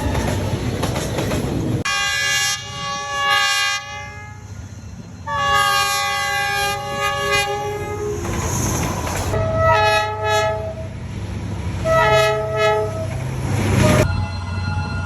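D19E diesel-electric locomotive's multi-tone horn: a blast about two seconds in, a longer one about five seconds in, then several groups of short toots. Under it run the steady hum of the diesel engine and the rumble of the train on the rails.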